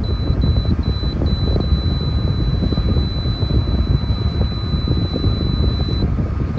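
Arctic King window air conditioner running with a steady low fan rumble, while its control panel beeps as the set temperature is stepped up to its highest: a run of short beeps, two to three a second, then one long steady beep that stops about six seconds in.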